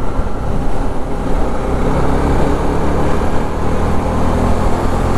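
Motorcycle riding at highway speed: the engine's steady drone under a rush of wind and road noise, with heavy lorry traffic around it.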